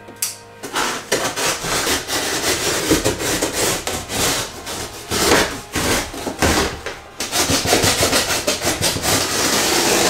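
A large cardboard box scraping and rubbing as it is tipped upright and its sides are pulled open around a water heater tank, with a few dull knocks.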